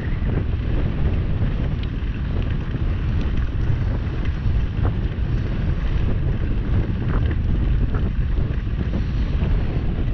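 Wind buffeting the microphone of a camera on a moving bicycle: a steady low rumble, with a few faint clicks.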